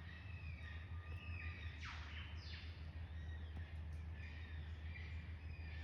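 Several bush birds chirping and calling over one another, with one loud call that slides steeply downward about two seconds in. A steady low hum runs underneath.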